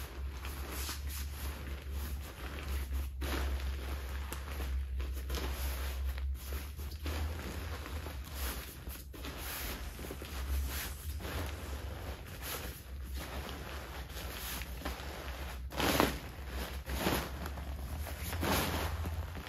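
TETON Sports Elite Rainfly fabric rustling and swishing as it is rolled up tightly and pressed down, in a run of uneven rustles, loudest about three-quarters of the way through. A steady low hum lies under it.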